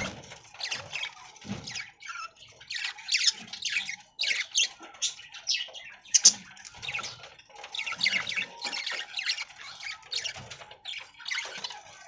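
A flock of budgerigars chirping and chattering, with many short, high calls in quick succession.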